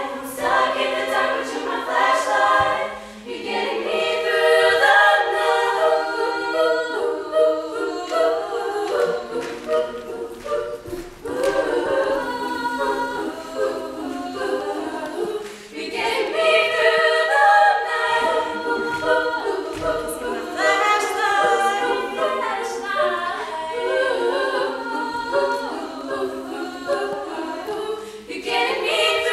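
Group of girls singing a cappella in harmony, several voices and no instruments.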